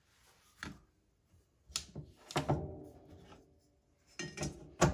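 Several separate knocks and clacks of steel rulers being laid down on a wooden tabletop, one followed by a short metallic ring, the loudest near the end.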